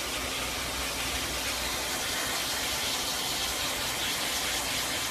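Pet blow dryer blowing a steady hiss of air through its hose.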